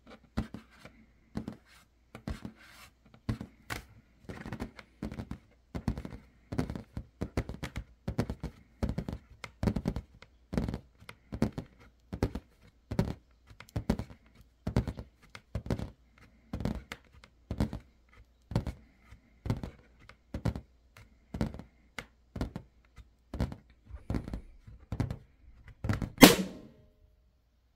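Long stiletto nails tapping and clicking on a large latex balloon, about two taps a second. Near the end the balloon bursts with one loud pop.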